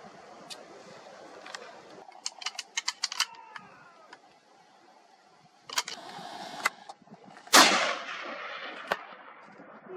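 A single rifle shot fired at a wild boar, loud and sudden about seven and a half seconds in, followed by a fading echo. Before it come a quick run of sharp clicks and a few single cracks.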